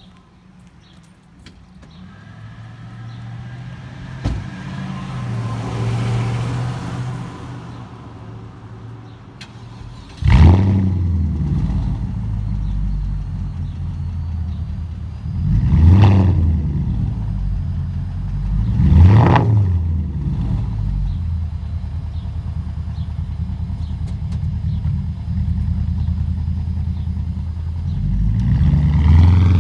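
Porsche Cayenne S 4.5-litre V8 with a muffler delete (straight pipes, catalytic converters kept) starting up. It catches with a loud flare about ten seconds in, is blipped twice, settles into a steady rumbling idle, then revs up again near the end.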